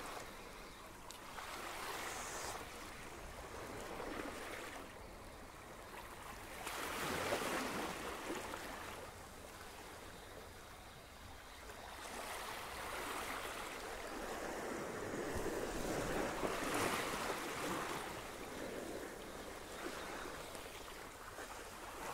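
Small sea waves washing against shore rocks, rising and falling in slow swells a few seconds apart.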